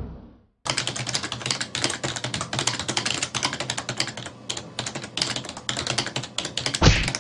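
Rapid, continuous keyboard typing clicks, starting about half a second in, over a faint steady low hum, with one heavier key thump near the end.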